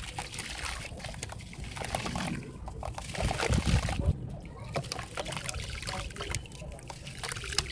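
Soft sand chunks crumbled by hand into a basin of water: crumbs falling and trickling into the water with many small crackles and splashes. About three seconds in comes a louder, deeper slosh as a chunk is dipped in the water.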